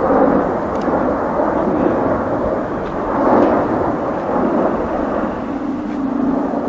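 Boeing C-17 Globemaster III's four Pratt & Whitney F117 turbofan engines as the transport passes overhead: a loud, steady jet rumble.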